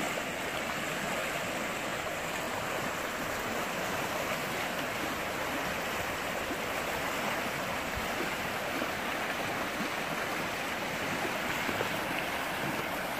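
A rain-swollen creek at high water, its fast current rushing with a steady, even sound.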